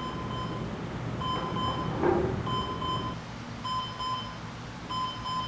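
Alarm clock beeping: short runs of quick, high beeps that repeat about every second and a quarter. A brief, lower, unclear sound comes about two seconds in.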